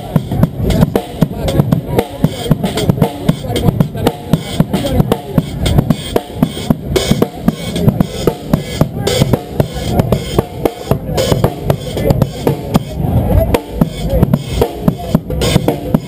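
Drum kit played live: a steady, busy groove of bass drum, snare and cymbal hits.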